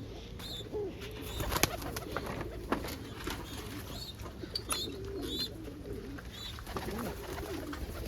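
Pigeons cooing: low, wavering coos that overlap throughout. Short high chirps recur every second or so, and there are scattered sharp clicks.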